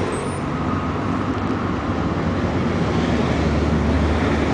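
Steady low engine rumble of road traffic, growing a little louder toward the end.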